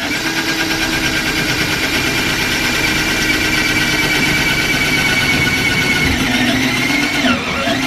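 20 V cordless drill running steadily at full speed, drilling a hole through a metal mounting bracket with a twist bit; its whine sags in pitch briefly near the end, then picks up again.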